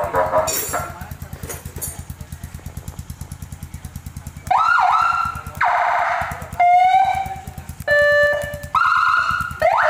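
A Kawasaki KLX motorcycle idles with a steady fast pulse. About four and a half seconds in, a 100-watt Whelen-style siren through a YD100 speaker sounds a run of short bursts in different tones: rising whoops, a steady wail, a fast warble and a horn-like two-tone blast, one after another, as its modes are tried in turn.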